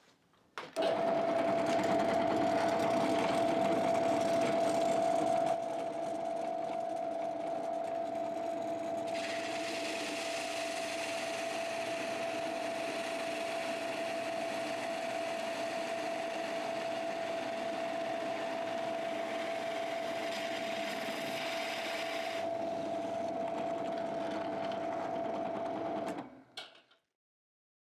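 Drill press running steadily with a 35 mm Forstner bit boring a hole through a wooden template board, with one steady motor whine throughout. It starts just under a second in, drops in loudness about five seconds in, and stops a couple of seconds before the end.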